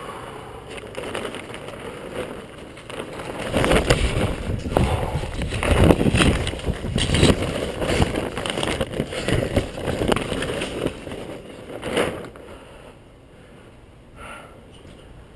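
A plastic tarp cover being pulled over bicycles, crinkling and rustling loudly and unevenly from about three seconds in, ending with a sharp rustle near twelve seconds.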